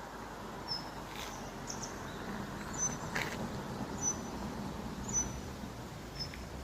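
A small bird giving short, high chirps about once a second over a steady, even rushing background.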